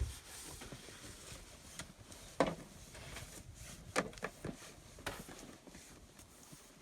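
Snow being cleared away by hand: irregular knocks and scrapes with a few sharper knocks, the loudest about two and a half and four seconds in.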